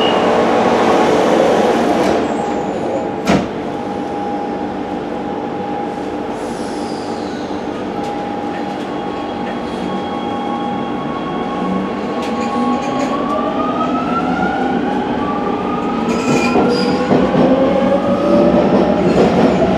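Rome Metro Line A train heard from inside the car: a steady electric hum while standing, a single knock about three seconds in, then the traction motors' whine climbing in pitch as the train pulls away and gathers speed.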